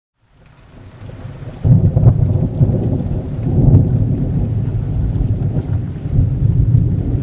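Thunderstorm sound effect: thunder rising out of silence, a sudden loud crack about two seconds in, then a long heavy rolling rumble over a steady hiss of rain.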